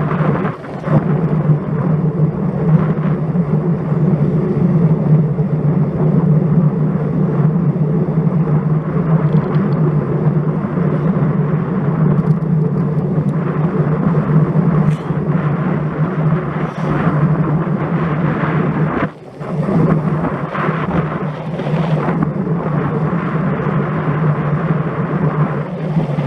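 Steady wind noise buffeting an action camera's microphone on a moving road bike, with road noise underneath. It drops out sharply twice, once just after the start and once about two-thirds of the way through.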